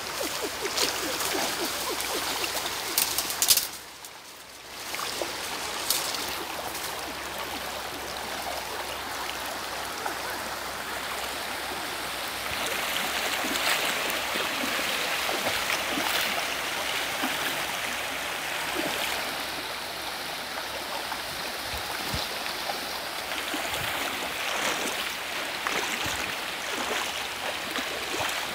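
Shallow river water running steadily over stones, with occasional splashes from people wading through it.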